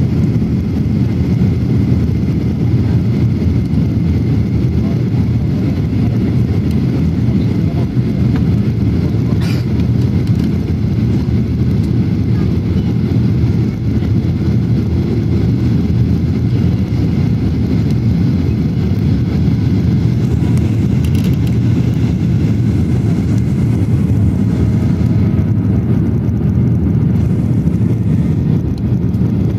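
Steady low rumble of jet engines and airflow heard inside the cabin of a Ryanair Boeing 737 airliner on its landing approach. One brief click about nine seconds in.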